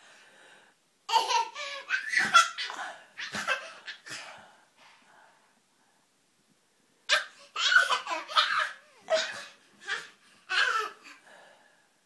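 A toddler laughing in two bouts, the first starting about a second in and the second about seven seconds in.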